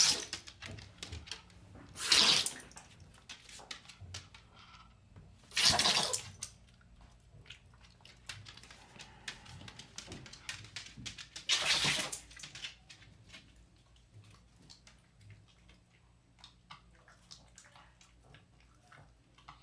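Boston terrier sneezing three times, about 2, 6 and 12 seconds in, each a short sharp blast of breath lasting about half a second, with faint clicks in between.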